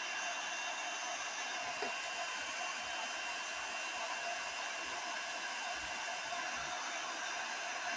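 Hair dryer running steadily: an even rush of air with a faint, thin high whine.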